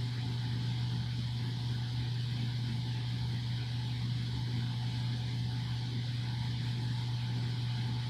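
A 2-ton upflow air handler's blower running steadily on high cooling speed, with a TrueFlow flow grid fitted in place of the filter: a constant low hum under an even rush of moving air.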